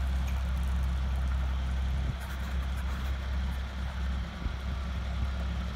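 Tractor engine running steadily at low revs as it hauls a narrowboat on a hydraulic trailer, with a deep even hum that dips briefly twice.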